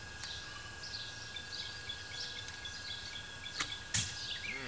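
Faint birds chirping throughout, then a bowstring released about four seconds in, giving one sharp snap as the arrow is shot.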